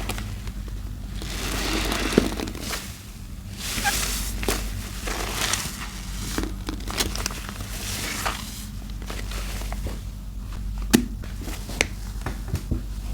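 A sponge squeezed and worked by hand in thick laundry-soap paste: wet, crackling squelches in repeated swells, with sharp little pops of bursting suds, over a steady low hum.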